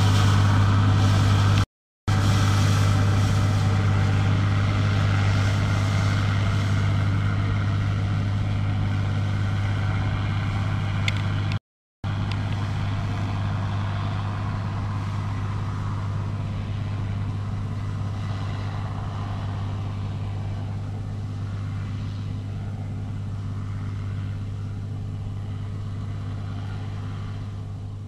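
Bizon BS Z110 combine harvester's diesel engine and threshing gear running steadily while harvesting, a low hum that fades slowly as the machine moves away. The sound cuts out briefly twice, about two seconds in and near the middle.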